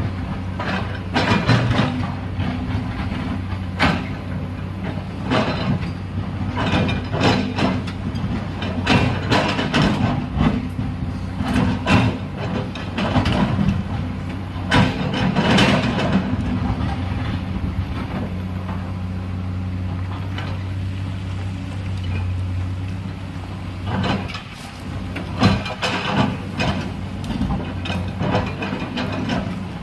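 Hydraulic excavator's diesel engine running steadily under load, with repeated irregular knocks and clatters of the bucket digging into earth and rock.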